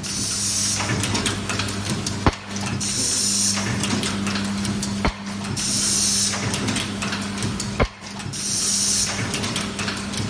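Automatic nylon zipper film-sealing, hole-punching and pin-box machine cycling: a sharp clack about every two and a half seconds, each followed by a short hiss of released compressed air, over a steady low hum.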